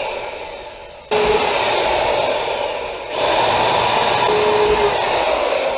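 Electric power tool running in bursts. Its motor winds down soon after the start, is switched on again abruptly about a second in, and runs until it winds down near the end.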